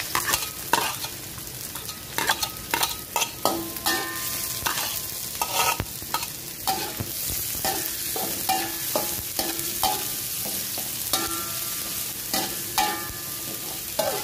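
Sliced shallots and garlic sizzling in hot oil in a wok, while a metal spatula stirs them, scraping and clinking against the wok at irregular intervals with short metallic rings.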